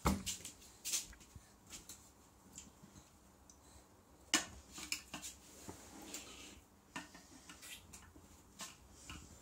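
A pen tip tapping and scraping on a plastic toy car, in irregular light clicks; the loudest come right at the start and about four and a half seconds in.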